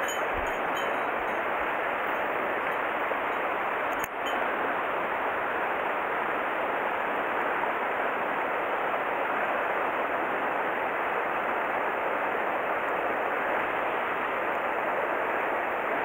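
Mountain stream water rushing steadily, with a brief dip about four seconds in.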